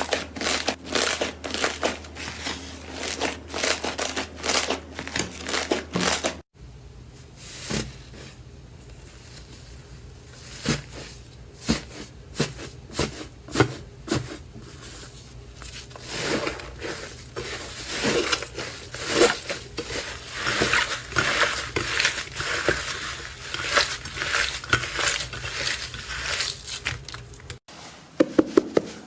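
Slime being squeezed and worked by hand, making rapid crackling, clicking and crinkling sounds. It comes in three separate stretches that change abruptly, with the middle one sparser at first and growing denser partway through.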